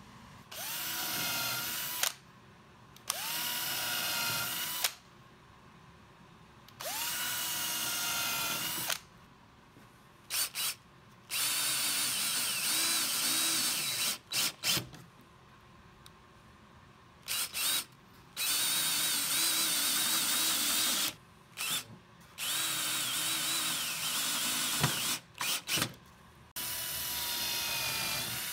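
Cordless power drill run in repeated bursts of one to three seconds, each spinning up with a rising whine, with a few quick trigger taps between them. In several of the longer runs the pitch sags and recovers as the bit or screw bites into the wood.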